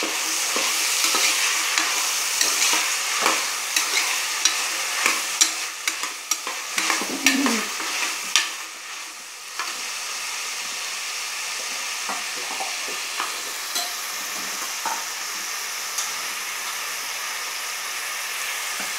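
Chopped vegetables sizzling in hot oil in a pressure cooker as they are sautéed. For the first eight seconds or so a metal spoon scrapes and knocks against the pot in many sharp clicks. After that the sizzling goes on steadily with only a few clicks.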